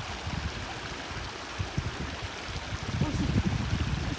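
Shallow river running over rocks, a steady rushing of water, with an irregular low rumble underneath that is heaviest about three seconds in.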